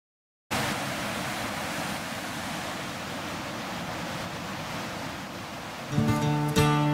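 Steady rush of a large waterfall, starting about half a second in. An acoustic guitar strumming comes in near the end.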